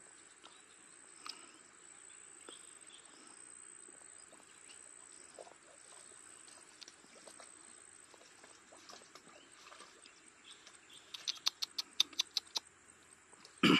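A dog splashing through shallow river water as it comes out of its swim: a quick run of about ten short splashes near the end, then one louder splash. A steady high insect drone runs underneath.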